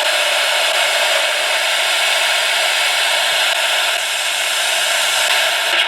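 Steady FM radio static: a receiver tuned between stations or to a station too weak to come in gives a constant loud hiss.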